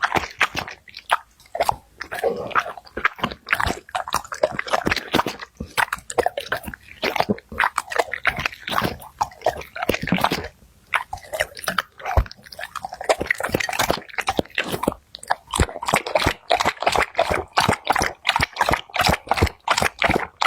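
A dog eating, chewing and crunching its food with many quick, irregular crunches that come faster toward the end.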